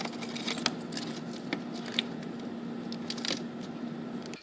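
Scattered light clicks and rustles of items being handled over a steady low hum, as at an open freezer; the sound cuts off abruptly at the end.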